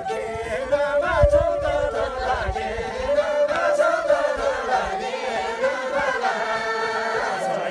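Men and women singing a yablang dance song together without instruments, their voices in long wavering phrases, with a low thump about a second in.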